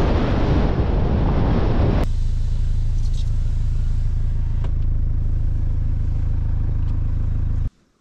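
Wind buffeting the microphone, then about two seconds in an abrupt change to the steady low rumble of a 4WD vehicle driving, which cuts off suddenly near the end.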